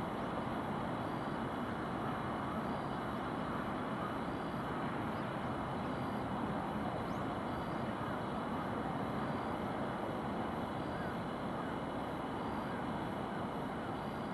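Steady distant town and traffic noise heard from high above a city, an even hum with no single vehicle standing out.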